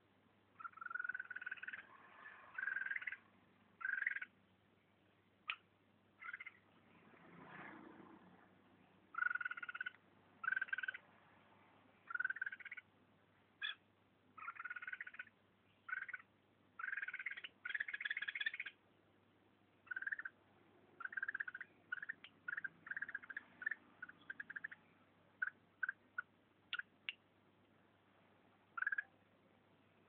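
Red-whiskered bulbul giving short bursts of agitated calls at irregular intervals, with quick runs of clipped notes toward the end, the calling of a combative bird squaring up to a hand at its cage.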